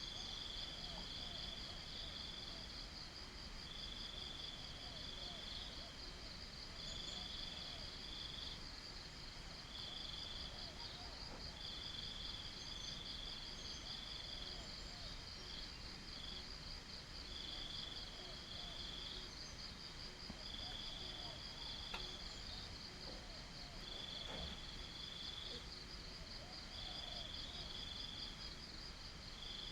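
Crickets chirring: one keeps up a continuous, fast-pulsing high trill, while another, slightly lower, calls in bursts of about a second that repeat every couple of seconds.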